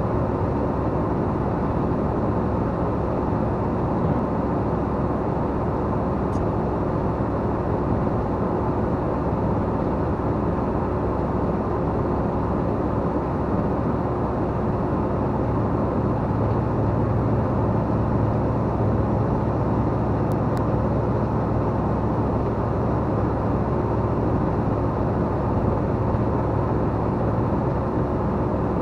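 RV campervan driving at highway speed: steady engine and tyre road noise with a constant thin hum. The low rumble swells for a few seconds a little past halfway.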